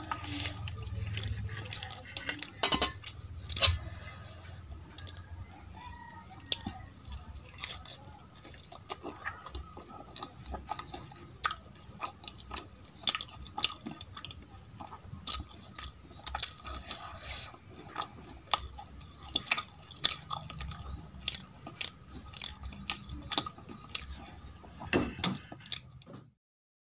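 Close-miked chewing of soft potato curry and kachori, with many sharp wet mouth clicks scattered throughout. The sound cuts off abruptly near the end.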